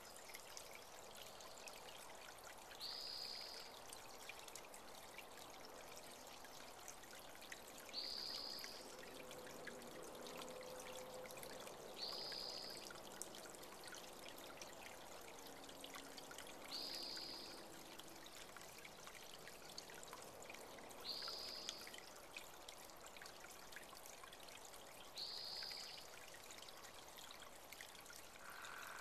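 A small natural spring creek trickling and running steadily over rocks. Over it, a bird gives one short high chirp about every four seconds.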